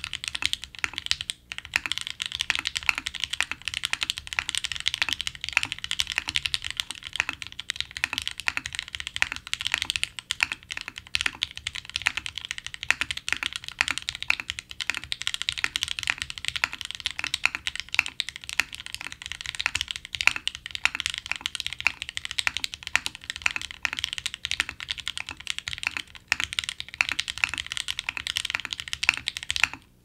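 Rapid, continuous typing on a 40% custom mechanical keyboard with Gateron CJ linear switches, an aluminium plate and DCS keycaps, gasket-mounted on top and O-ring-mounted below. The keystrokes come in a dense, unbroken stream.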